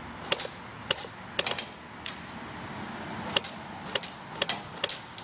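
Airsoft P90 firing single shots: about a dozen sharp clicks at irregular intervals, some in quick pairs.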